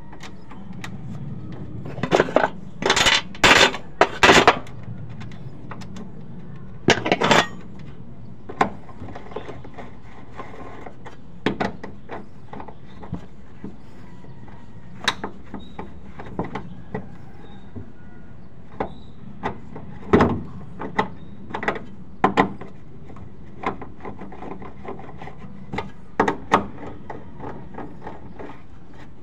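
Metal clinks and taps of a T-handle socket wrench on the nuts of a fuel pump flange as they are run down and tightened, coming irregularly with a tight cluster of louder clanks in the first few seconds. A steady low hum runs underneath.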